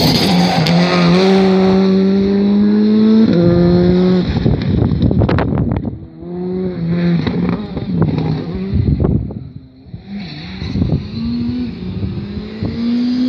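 Skoda Fabia R5 rally car's turbocharged four-cylinder engine at racing speed. It holds a climbing note through a gear, changes up about three seconds in, and gives a cluster of sharp cracks around four to five seconds in. The note then fades as the car goes round the circuit and rises again near the end.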